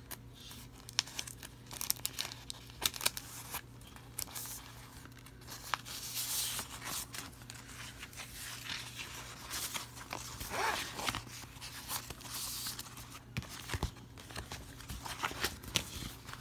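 Paper sticker sheets and sticker-book pages rustling, sliding and crinkling as they are sorted by hand, with scattered small taps and clicks, over a faint steady hum.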